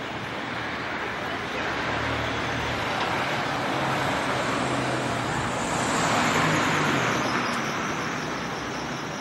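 Road traffic: a motor vehicle passing by, its engine hum and tyre noise swelling to a peak about six seconds in and then fading.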